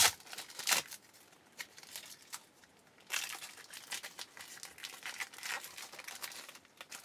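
Foil trading-card pack wrapper being torn open and crinkled: two sharp rips near the start, then a longer stretch of crinkling from about three seconds in.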